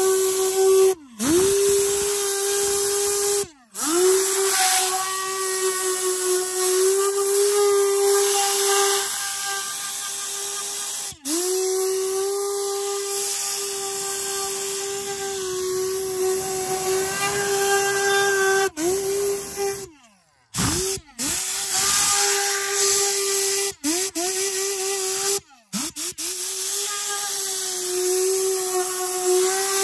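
SPTA Tornador-style air cleaning gun blowing compressed air onto car carpet: a loud hiss with a steady whistling tone from the whipping nozzle tube. The air cuts off briefly several times, the tone sliding down in pitch each time it stops, then picks up again.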